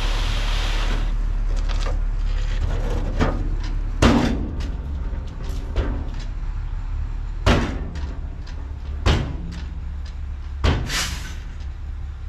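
Ford L8000 dump truck's engine running steadily as it pulls away with the bed raised, with a hiss at the start and several loud bangs a second or two apart, from the open tailgate swinging and slamming against the bed.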